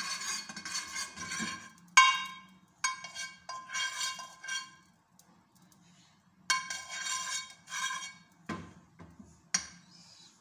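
Metal spoon scraping and clinking against a frying pan while spreading ghee across it. The scraping comes in several ringing strokes, with a sharp clink about two seconds in and a couple of duller knocks near the end.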